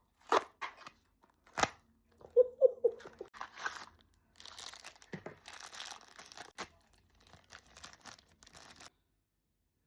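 Blind-box packaging being opened by hand: a few sharp taps on the small cardboard box, then tearing and crinkling of the wrapping inside.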